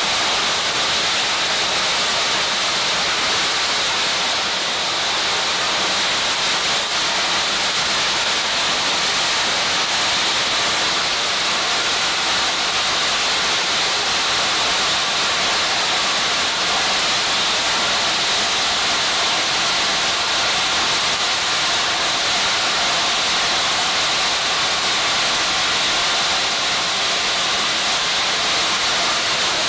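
Small RC turbojet engine, about 70 lb of thrust, running steadily at power: a loud jet roar with a high turbine whine. The whine dips in pitch briefly about five seconds in, then recovers.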